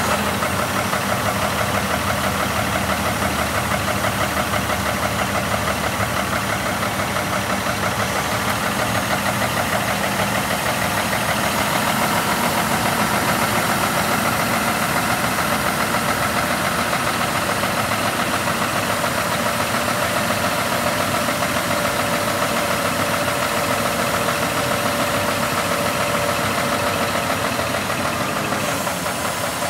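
Scania 470 hooklift truck's diesel engine running steadily, driving the hydraulics as the JOAB hook arm swings out backwards; a little quieter near the end.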